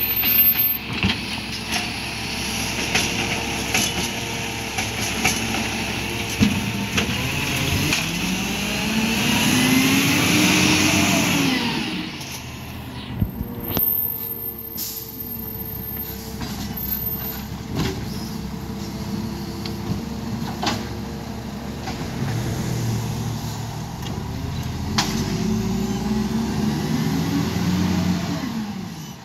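Side-loading garbage truck, an Iveco Stralis diesel with a Bucher hydraulic lifting arm, working at the kerb. The engine revs up and down over a steady hiss for the first dozen seconds, then the truck moves off and the sound drops, with air-brake hiss and a few clicks. Near the end the engine revs up and down again, farther away.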